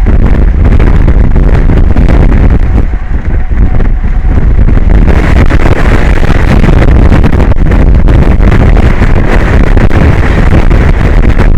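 Strong wind buffeting the microphone: a loud, steady rumble without any distinct tone, heaviest in the low end.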